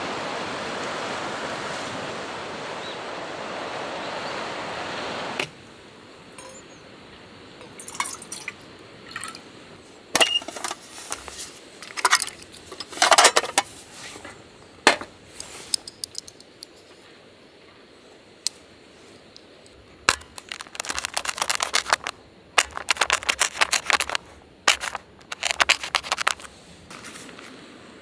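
Steady rushing outdoor ambience for the first five seconds, cut off abruptly. Then camp cooking gear is handled: clicks, crinkles and runs of clinking as a metal pot and a plastic instant-rice bowl are set up on a small gas stove.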